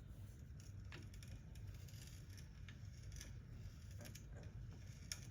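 Hand brace turning a 59/64-inch bit slowly into wood: faint, irregular scraping of the bit cutting, with scattered light clicks and a sharper click near the end.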